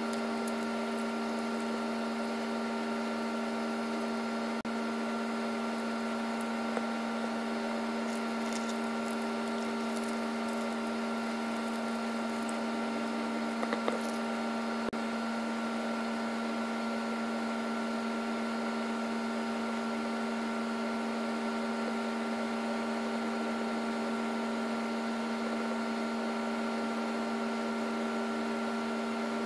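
A steady machine hum holding the same pitch throughout, like a small electric motor running, with a few light clicks and taps near the middle.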